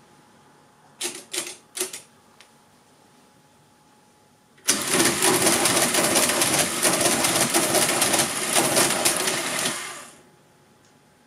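Marchant 8CMR electromechanical calculator working on its own. About a second in come three short mechanical whirs. Then, for about five seconds, its motor-driven gear mechanism runs a calculation cycle as a loud, fast, dense clatter, which stops and fades near the end.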